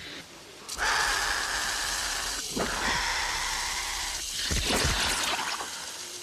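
Heavy rain and rushing water that come in suddenly, loud, about a second in, with a man's gasps twice as he goes down into the flooded slope.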